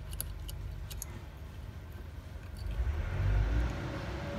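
Light metallic clicks of a coil spring being hooked back onto the levers of a Nuffield M4 tractor governor, over a low steady hum, with a louder low rumble about three seconds in.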